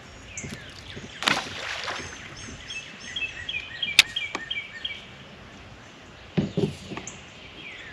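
Birds chirping in repeated runs of short high calls and falling whistles. Mixed in are a brief rush of noise a little over a second in, a sharp click about four seconds in, and a few dull knocks near the end.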